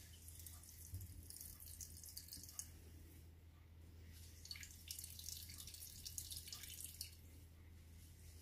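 Cucumber juice dripping and trickling into a glass bowl as grated cucumber is squeezed by hand in a cloth; faint, irregular drips.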